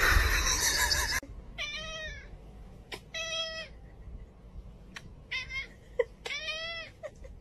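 A loud rushing noise for about the first second, then a domestic cat meowing four times, each meow rising and falling in pitch.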